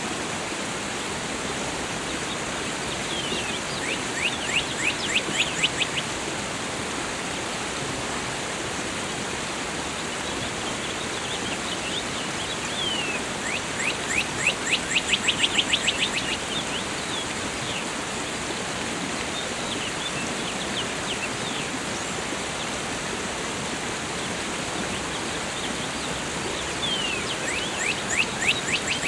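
Steady rush of falling water with a small songbird singing over it: three songs, each a fast run of short downward-sweeping notes lasting two to three seconds, about four seconds in, about a third of the way through and near the end, with a fainter song around the middle.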